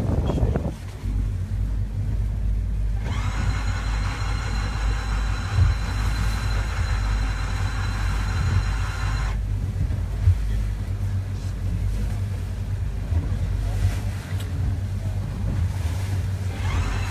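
Center-console boat running across choppy open water: wind buffeting the microphone over a steady low engine rumble. About three seconds in, a higher steady whine joins in and cuts off abruptly about six seconds later.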